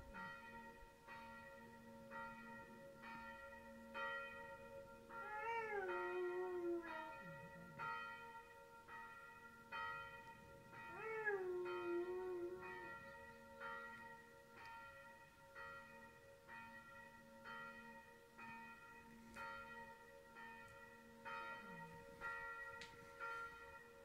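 Church bells ringing with steady, evenly spaced strokes, and an Afghan hound howling along to them twice, each howl about two seconds long, dropping in pitch and then holding.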